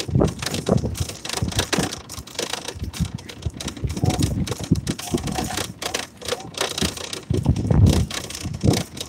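A metal shopping cart rolling over rough asphalt, its wheels and wire basket rattling in an uneven, continuous clatter.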